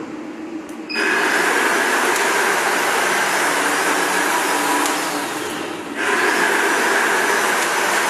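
A row of cold spark machines spraying sparks, a loud steady rushing hiss that starts suddenly about a second in. It dips briefly past the middle and comes back as the machines fire in turn from the first to the sixth.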